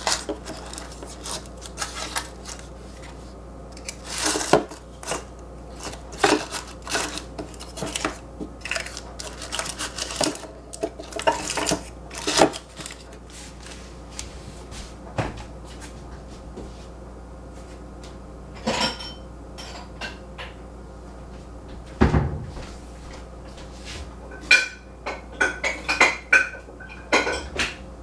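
Small glass yogurt jars clinking and knocking against one another as they are set into a plastic cooler box: a run of separate clinks and knocks, with a dull thump about two-thirds of the way through and a few ringing clinks near the end.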